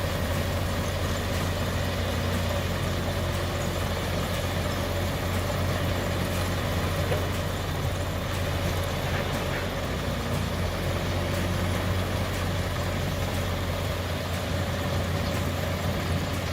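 TESAB 700iE hybrid electric mobile jaw crusher running steadily, a continuous machine drone with a low hum and no distinct impacts.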